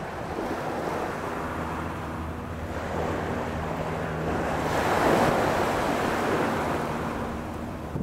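Small waves breaking and washing up a sand beach, the surf swelling to its loudest about five seconds in and then easing off.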